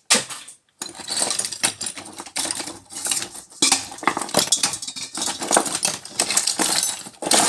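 Small pieces of scrap metal clinking and rattling together as they are rummaged through by hand. After a short pause near the start, the clinking goes on continuously.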